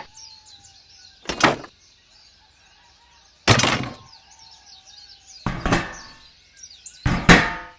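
Four sharp knocks about two seconds apart, each with a short ringing tail, over faint birdsong.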